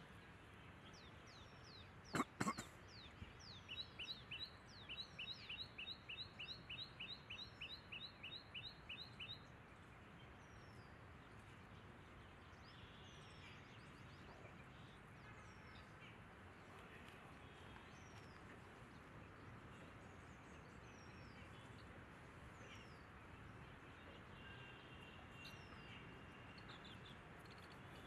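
Two sharp clicks, then a bird calling a quick, even run of sharp chirps, about three a second, for some five seconds. After that only faint, scattered high bird chirps over quiet outdoor background.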